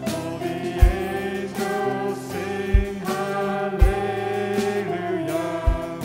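Worship song: singing voices over instrumental accompaniment, with a deep beat landing every second or two.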